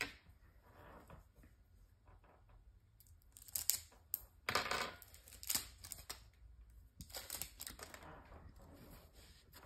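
Packaging of a Yu-Gi-Oh! trading card deck crinkling and tearing, with small clicks, as the deck is unwrapped. It comes in a few short, separate bursts, the loudest around the middle.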